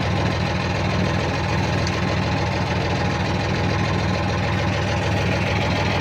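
Sailboat's inboard engine idling steadily, a constant low hum.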